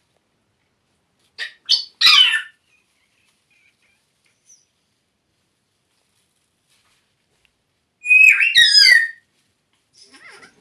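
African grey parrot calling: three short squawks about a second and a half in, then a run of gliding whistles around eight seconds in, with quiet between.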